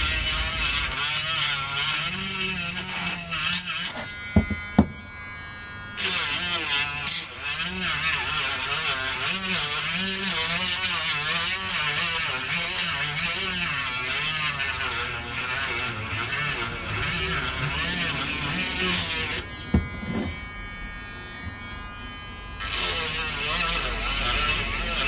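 Dremel rotary tool grinding inside the port of an air-cooled 125cc four-stroke cylinder head, taking out casting marks. Its whine wavers in pitch as the burr loads up against the metal, and it drops away twice for a couple of seconds, with a click or two.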